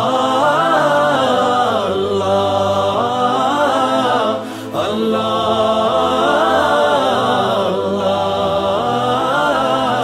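Background music from a devotional Urdu song, a hamd praising God: a voice holds long, gliding melodic phrases over a steady low drone, with no words sung.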